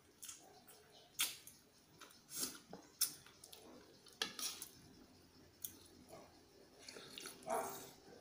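Close-up eating sounds: a spoon clicking against a ceramic soup bowl, with chewing and slurping of macaroni soup. Irregular short clicks and brief wet sounds.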